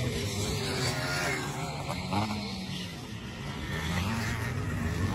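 Pre-1984 500cc motocross motorcycles racing on a grass scramble track, engines revving up and down in the distance. The engines dip a little about three seconds in and grow louder again near the end.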